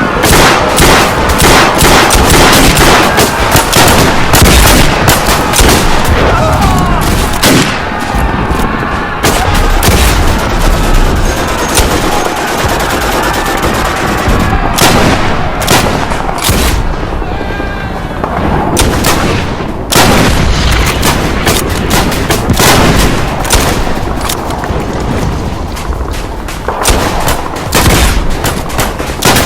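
Battle sound effect of a WW1 infantry charge: dense rifle and machine-gun fire with booms. In the first half a mass of men's voices yells over the shooting.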